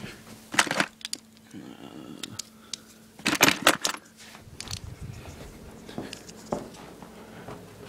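Loose hand tools clinking and clattering as they are rummaged through in search of a screwdriver: scattered sharp clicks, with a loud cluster of clatters about three and a half seconds in.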